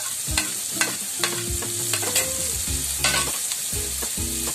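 Onion, green chillies and freshly added julienned carrots sizzling in hot oil in a frying pan, a steady hiss broken by a dozen or so sharp clicks and knocks.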